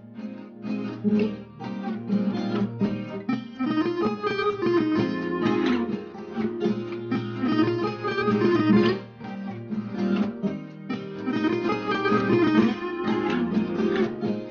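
Background instrumental music of quick plucked string notes, steady throughout.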